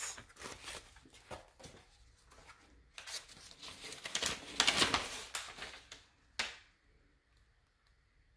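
Paper being handled: a thank-you card and packaging rustling and crinkling in a run of quick crackles, busiest about three to five seconds in, with one sharp click a little after six seconds.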